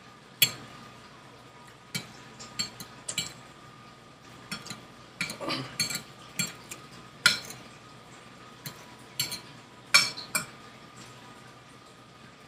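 Metal fork clinking and scraping on a dinner plate while food is cut and picked up: about a dozen sharp, irregularly spaced clinks.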